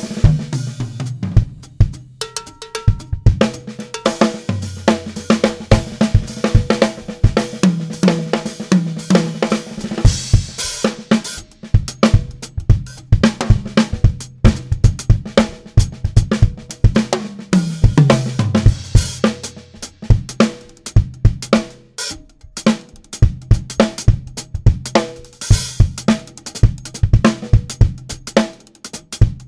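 Solo on a Pearl drum kit with Zildjian cymbals, played melodically: fast runs of strokes over toms, snare and bass drum, with the drum pitches stepping up and down like a tune, and hi-hat and cymbal hits throughout.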